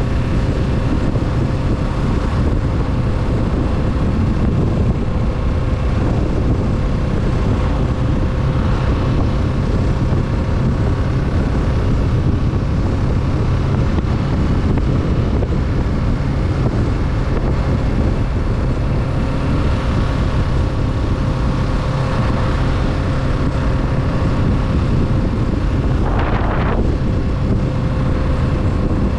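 Kawasaki Z650's parallel-twin engine running at a steady pace while riding, with wind rushing over the microphone. A short hiss comes in near the end.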